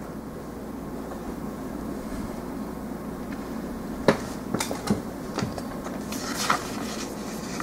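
Steady room hum, then several light clicks and taps starting about four seconds in, with a brief rustle near the end.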